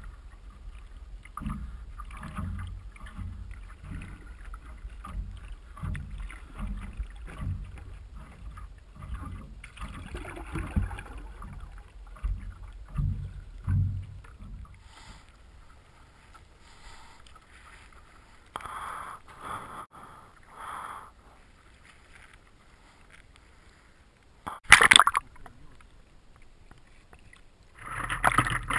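Water heard muffled through a submerged action-camera housing: a run of low thuds roughly twice a second for about the first half, then quieter sloshing with a few short splashes, one sharp loud splash about 25 seconds in, and louder water noise near the end as the camera comes up to the surface.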